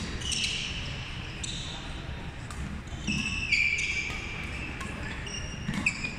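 Court shoes squeaking on a hardwood sports-hall floor during a badminton doubles rally, with short sharp taps of rackets hitting the shuttlecock. The longest squeal comes about three and a half seconds in.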